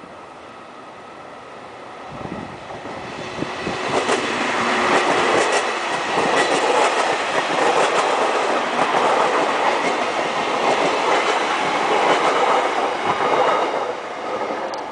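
JR Kyushu 813 series electric train passing close by. It grows louder as it approaches, its wheels clattering over the rail joints, and drops away suddenly near the end.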